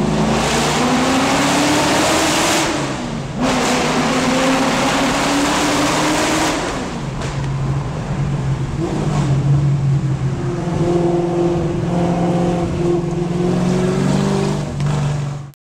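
Aston Martin V8's 5.3-litre V8 engine heard from inside the cabin, accelerating through the gears: its pitch climbs, drops back at a shift about three seconds in and again about seven seconds in, then climbs once more.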